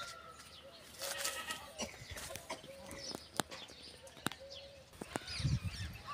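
Hens clucking in short, repeated calls, with small birds chirping and a couple of sharp clicks.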